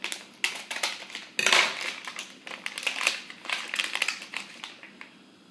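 Crinkly foil blind-bag packet rustling and crackling as it is cut with scissors and pulled open by hand. The loudest burst comes about a second and a half in, and the crackling dies away near the end.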